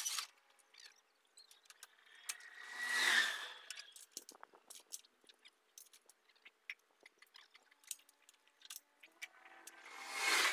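Scattered light metallic clinks and scrapes of a tractor plough being lined up and pinned onto the tractor's hitch, with a louder swell of noise about three seconds in and another near the end.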